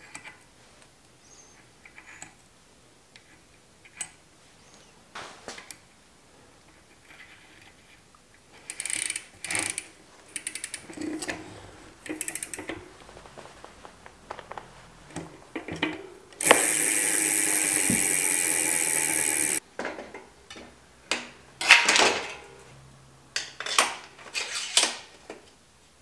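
Bicycle cassette work: metal cogs and spacers clicking and clinking as they are fitted onto the rear hub, and the lockring being tightened with a cassette tool and wrench. Just past the middle comes a loud, steady mechanical buzz for about three seconds that starts and stops abruptly, followed by more metal clicks and knocks.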